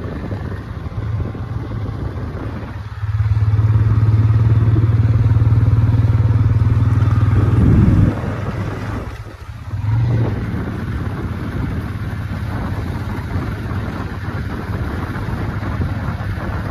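Motorcycle engine running under way, ridden along a dirt track. It grows louder about three seconds in, drops away sharply around nine seconds as the throttle is eased, then picks up again and runs steadily.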